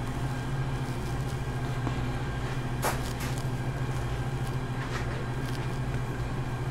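Steady low machine hum, with one faint click about three seconds in.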